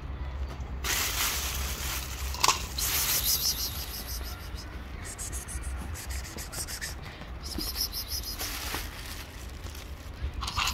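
Rubbing and scraping handling noise from a handheld camera being carried, with a sharp click about two and a half seconds in, over a steady low rumble.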